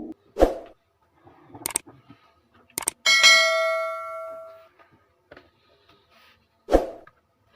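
A few sharp knocks, and one bell-like metallic ding about three seconds in that rings out and fades over a second and a half.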